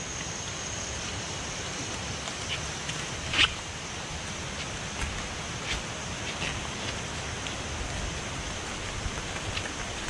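Steady rushing noise on a rainforest trail, with scattered short rustles and footfalls as people in rain jackets walk along it; the loudest rustle comes about three and a half seconds in.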